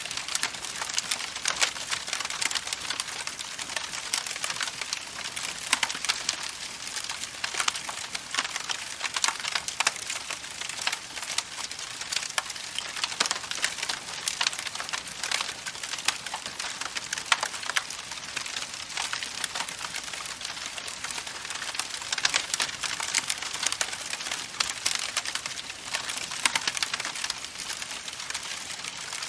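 Campfire crackling continuously, with dense small pops and snaps of burning wood over a steady hiss.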